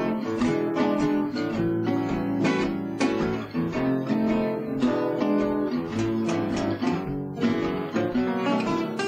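Jazzy guitar backing music: a steady run of quickly picked notes and strummed chords.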